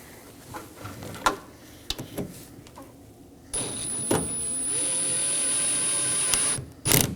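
A powered driver running steadily for about three seconds, a motor whine that stops suddenly, as it snugs down the T30 Torx screw that holds the door handle. Light clicks come before it and a couple of sharp clicks near the end.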